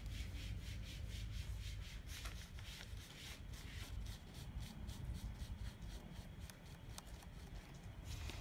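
Paintbrush brushing white acrylic paint onto a wooden board: faint, quick scratchy strokes, about four a second at first, then more irregular.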